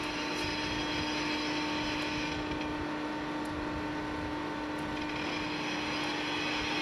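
Railway snow-clearing train running: a steady mechanical roar with a constant droning hum.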